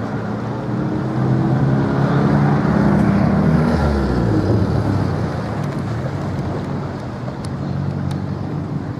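An engine passes close by. It grows louder for a few seconds and its pitch drops as it goes past, about four seconds in.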